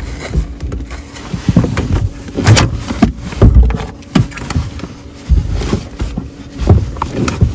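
Irregular knocks, bumps and clatter of hands-on installation work, with several heavy low thuds and sharp clicks spread through.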